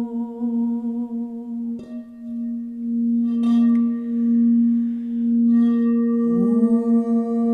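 Crystal singing bowl ringing with one steady, sustained tone, sounded with a wand against its rim, with a light knock of the wand about three and a half seconds in. A woman's voice sings into the bowl at the start. Near the end it slides up to join the bowl's pitch.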